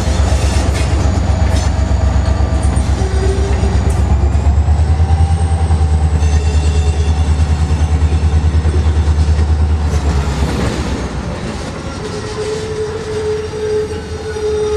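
EMD 645 diesel locomotive prime mover running with a heavy, low, pulsing engine beat. About ten seconds in, the engine sound drops away, and a steady high tone comes in near the end.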